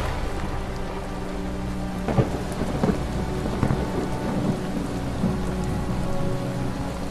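Steady heavy rain with thunder rumbling low, a few sharper cracks in the middle, and held low synth notes that shift pitch now and then.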